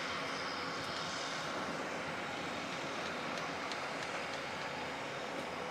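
Steady distant hubbub of a large outdoor agricultural show, with no single sound standing out.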